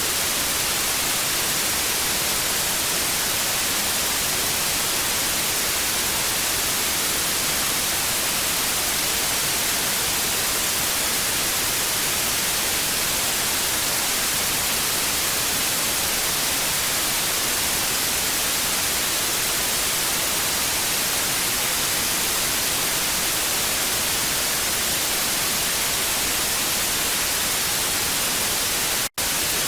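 Television static: a steady, even hiss, brightest in the high end, broken once near the end by a split-second gap of silence.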